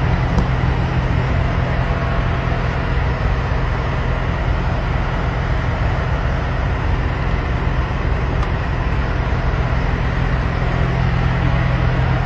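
Large truck's engine idling steadily: a constant low drone with even noise over it.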